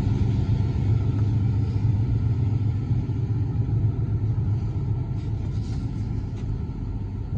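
Case CX350B excavator's diesel engine idling steadily: a low, even rumble.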